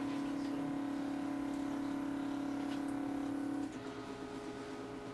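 Kit-built MakerBot 3D printer's stepper motors whining with one steady tone that cuts off about three and a half seconds in, leaving a fainter, different tone. The printer has just begun a job and is starting to lay down the raft.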